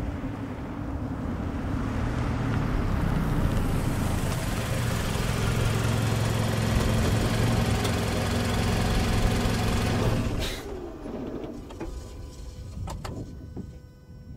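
Mazda CX-5 small SUV pulling up in front and settling into a steady engine idle. The engine is switched off about ten seconds in and cuts out suddenly, followed by a few faint clicks.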